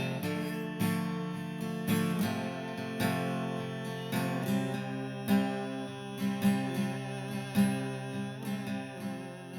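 Acoustic guitar music, strummed chords with sharp attacks every second or so.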